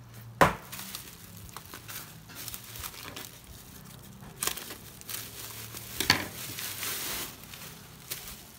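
Plastic bubble wrap crinkling and rustling as it is handled and cut open with a kitchen knife, with a few sharper crackles. A sharp knock about half a second in is the loudest sound.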